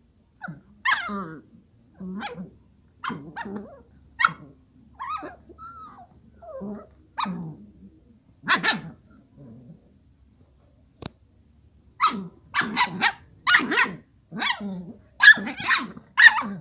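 A Rottweiler puppy and an askal (street-dog) puppy play-fighting, giving short barks and yips with some growling. The barks come about once a second, pause briefly after the middle, then come faster and louder near the end.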